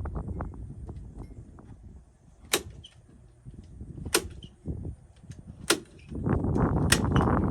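A fastening gun, nail or staple, firing four sharp shots about a second and a half apart, over a low rumble that gets louder near the end.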